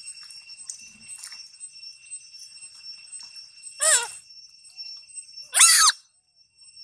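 Long-tailed macaque giving two short, high-pitched screeches, about four and five and a half seconds in, over a steady high-pitched background drone.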